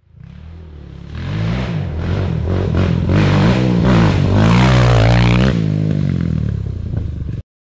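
Quad (ATV) engine revving up and down repeatedly, building in level over the first couple of seconds and cutting off abruptly near the end.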